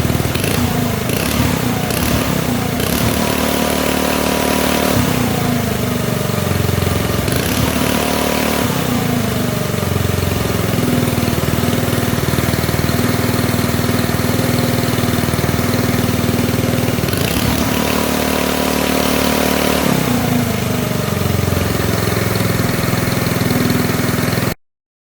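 Engine running and revving up and down several times, each rev a rising then falling pitch, until it cuts off suddenly near the end.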